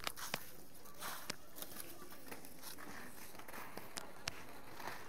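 Inline skates rolling over an asphalt road: a steady low rumble with a few sharp clicks scattered through it. Faint voices are in the background.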